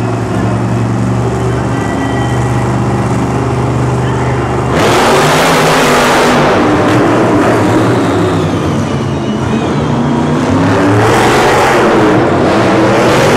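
Monster truck engine idling with a deep, steady rumble, then revved hard about five seconds in, its pitch rising and falling. It surges again near the end.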